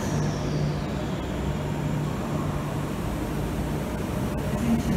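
Transperth A-series electric train pulling away: a steady low rumble, with a high whine that slides down and fades out in the first second.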